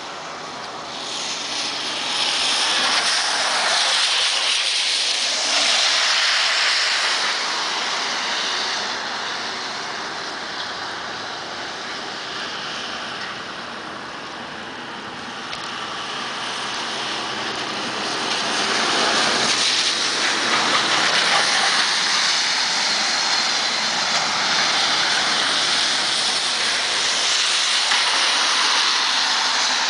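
Traffic passing on a wet street: tyre hiss that swells a couple of seconds in, eases off midway, and swells again from about 19 seconds on.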